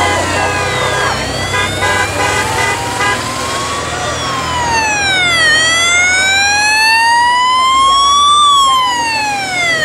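Siren of the police escort vehicles wailing, its pitch sweeping slowly up and down about every four seconds, with a second, choppy on-off tone and a low engine rumble in the first three seconds.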